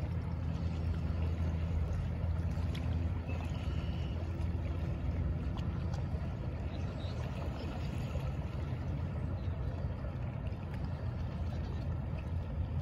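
Passenger ferry's engines heard across open water as a steady low drone, easing slightly as the boat moves along, over a haze of wind and water noise.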